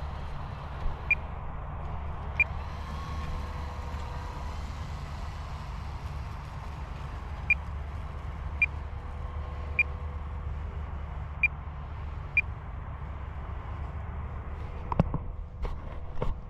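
Steady low outdoor rumble with a faint steady hum, broken by short high beeps at uneven intervals, about eight of them, and a few sharp clicks near the end.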